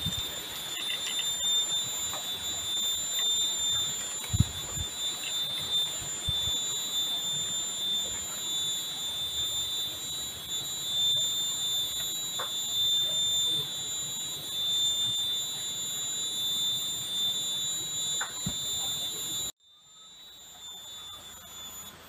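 Steady high-pitched insect drone on one even tone, with a fainter higher tone above it. A few low knocks from handling break in, the loudest about four seconds in. The whole sound drops away sharply near the end.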